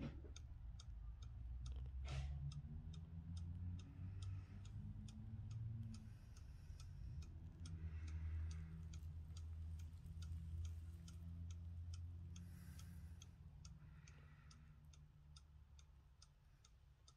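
Trenkle one-day mechanical cuckoo clock ticking evenly, about three ticks a second, with one louder click about two seconds in. A low steady rumble runs underneath and fades toward the end.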